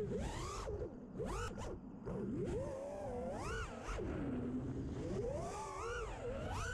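FPV freestyle quadcopter's brushless motors whining, the pitch swooping up and down again and again as the throttle is worked through the flips and yaw spin.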